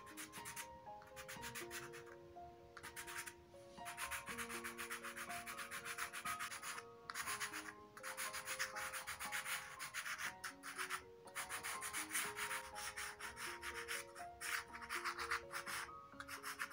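Soft pastel scraped back and forth on textured card in quick, rapid strokes, in several bursts with short pauses between them. A slow background melody of held notes plays underneath.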